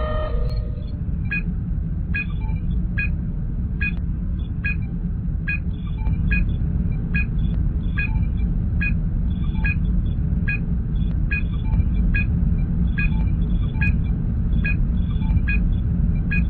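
Star Trek starship ambience sound effect: a steady low engine rumble with a short electronic scanning beep repeating evenly a little faster than once a second. A brief set of computer tones ends just as it begins.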